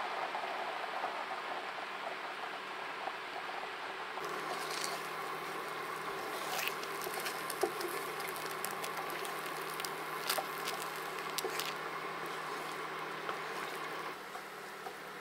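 Beaten egg cooking in an enamelled cast-iron skillet: a soft sizzle with scattered small crackles and pops, which start about four seconds in. Near the end a wooden spatula scrapes and pushes through the setting egg.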